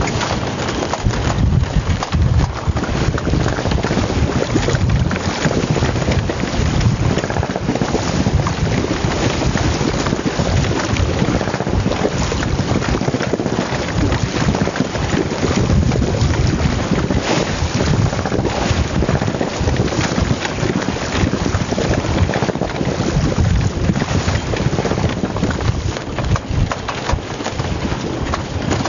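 Strong wind buffeting the microphone aboard a small sailing yacht underway at sea: a loud, unsteady rumble of wind noise.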